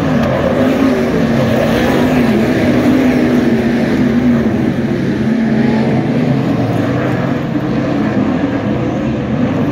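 Several sprint car engines running at racing speed on a dirt oval, their pitch rising and falling as the cars go around the track.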